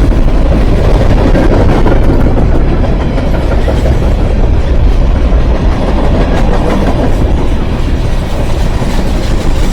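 1150 RockHawg rock-milling machine cutting through hard rock: a loud, continuous grinding clatter and rumble of the cutting drum and engine under load.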